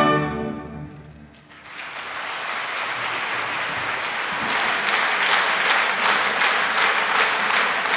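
A symphony orchestra's closing chord rings out and fades in the hall. About a second and a half in, the audience breaks into applause, which builds to steady clapping.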